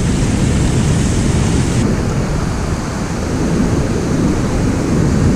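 Fast river water rushing through whitewater rapids below a dam, a loud steady rush, with wind on the microphone.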